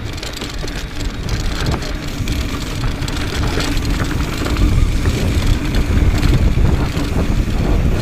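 Mountain bike riding fast down a rocky dirt trail: tyres crunching over gravel and the bike rattling over the rough ground, with wind rushing on the microphone. The noise grows louder through the run as the bike picks up speed.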